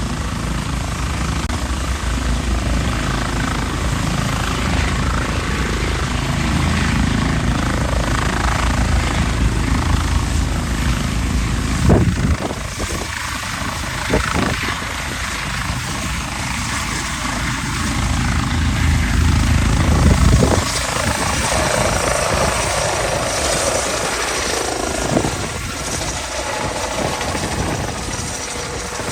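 Helicopter flying past, its low rotor sound strong for about twelve seconds, swelling once more briefly and then fading as it goes away. A few sharp knocks stand out along the way.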